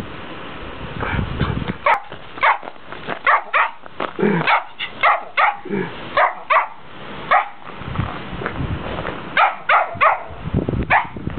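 Small white-and-brown dog barking: a string of short, sharp barks in quick runs, beginning about two seconds in, with a brief pause before a last run near the end.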